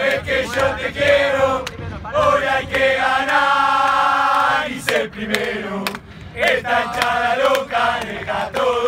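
A group of men singing a football chant together, with a long held note about three seconds in.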